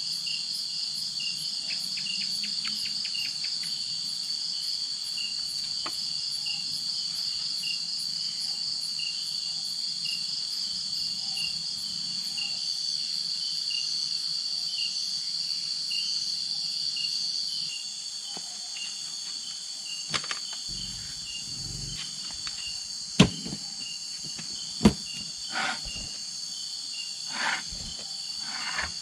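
Night insect chorus, crickets and other insects trilling steadily with a fast pulsing high call. The mix changes about two-thirds of the way through, and a few sharp knocks follow near the end.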